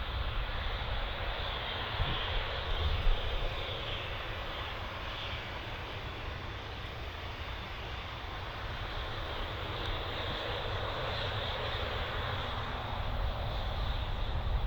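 Aircraft engines running steadily: a continuous rumble and hiss that grows slightly louder near the end.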